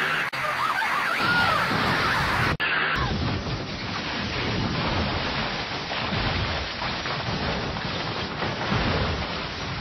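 Film sound of a runaway jeep. For the first couple of seconds there is a steady rushing noise with a few high, wavering squeals. After a sudden cut the jeep is heard tumbling down a rocky slope: a continuous crashing and clattering of the vehicle and stones.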